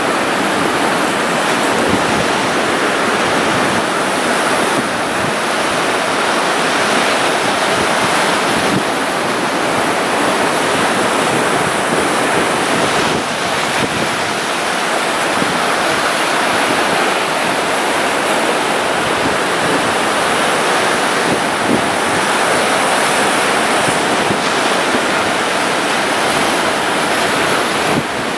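Sea waves breaking and washing over a rocky shore: a steady, continuous rush of surf with no single crash standing out.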